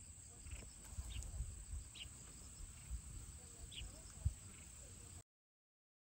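Steady high insect drone with short chirps about once a second, over wind gusting on the microphone. The sound cuts off abruptly about five seconds in.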